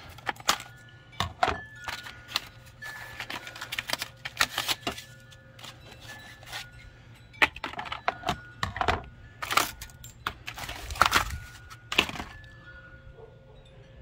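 Scissors snipping plastic zip ties and packing paper and foam being pulled and torn off a bike frame: a run of sharp snips, clicks and paper rustling. Wind chimes ring with short clear tones behind it.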